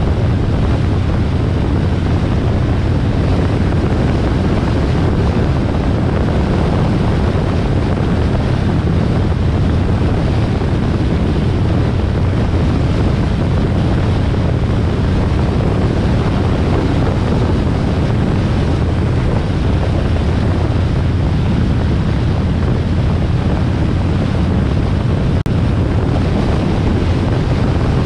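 Harley-Davidson XL1200R Sportster's V-twin running steadily at expressway speed, mixed with heavy wind rushing over the microphone. The level dips for an instant near the end.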